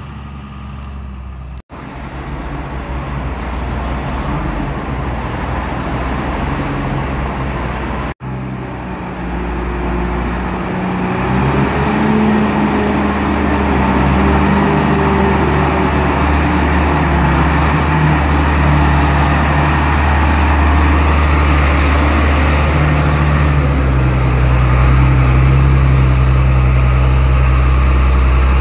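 John Deere 4955 tractor's six-cylinder diesel engine running steadily, getting louder and working harder from about ten seconds in. The sound breaks off for an instant twice in the first eight seconds.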